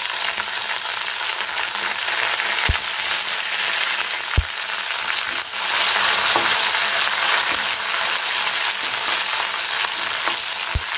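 Curry leaves sizzling in hot coconut oil with fried shallots while being stirred with a spoon: the tempering (tadka) for a curry. A steady sizzle that gets somewhat louder about six seconds in, with a few sharp clicks from the spoon or popping oil.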